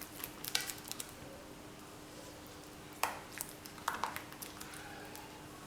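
Spoon clinking and scraping against a bowl while stirring thick cake batter, in scattered taps: a few in the first second, then a small cluster about three to four seconds in.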